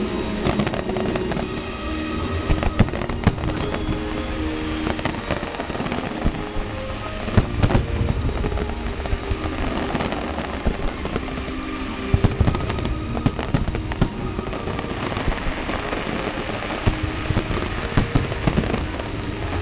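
Aerial fireworks bursting: many sharp cracks and booms in quick succession, over music with long held notes.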